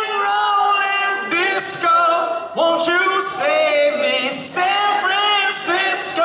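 Live rock-pop singing over the band, a male lead vocal carrying the melody in sung phrases.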